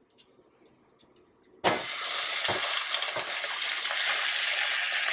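Sliced tomatoes, bell peppers and onions hitting hot oil in a stainless steel pan, starting to sizzle loudly and suddenly a little under two seconds in. A few soft knocks come from a wooden spoon pushing them off the plate.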